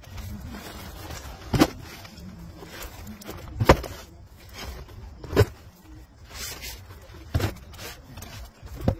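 Cardboard flats of filled glass mason jars being set down and pushed into place, giving five sharp knocks of glass and cardboard about two seconds apart, over a steady low rumble.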